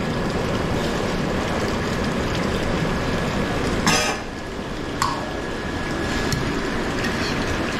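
Steady rushing noise of a restaurant kitchen, with a short clatter about four seconds in and a sharp click about a second later.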